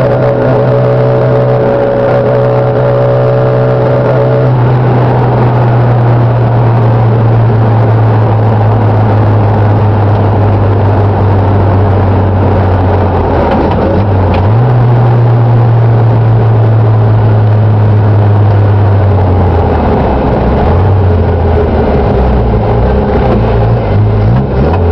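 Datsun A14 engine in a Mazda 1000 ute running under way, with road noise. The engine note sags slowly, rises sharply about halfway through, then drops and wavers near the end. A higher whine sounds over the first four seconds or so, then stops.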